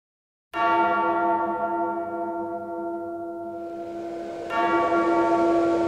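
A bell-like tone struck twice, about four seconds apart, each stroke ringing on and slowly fading.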